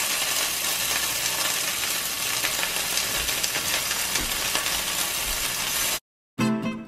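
Strips of ají amarillo (yellow chili pepper) frying in oil in a nonstick skillet: a steady sizzle with small crackles. It cuts off suddenly about six seconds in, and acoustic guitar music begins.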